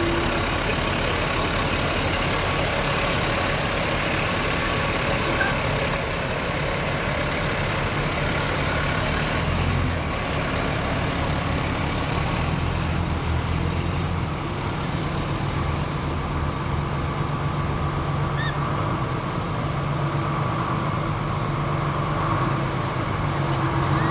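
Fire trucks' engines running steadily as they roll slowly past: a modern aerial ladder truck at first, then antique open-cab fire engines, a continuous low engine drone.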